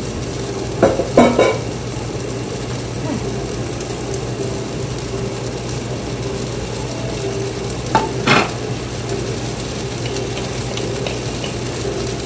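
Fried rice with chicken sizzling steadily in a hot pan over medium-high heat, under a steady low hum. Short clatters of a utensil or ingredients against the pan come about a second in and again near eight seconds.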